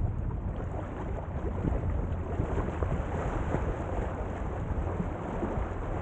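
Waves washing up a sandy beach in a dense crackling hiss, with a low wind rumble on the microphone.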